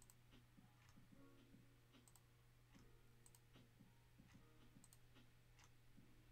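Faint computer mouse clicks, a handful at uneven intervals, clicking a web page's randomize button over and over.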